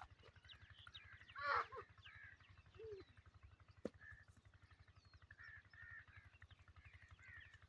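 Birds calling in a rural evening, many short repeated chirps with one louder harsh call about a second and a half in. There is a single sharp click near the four-second mark and a low steady hum underneath.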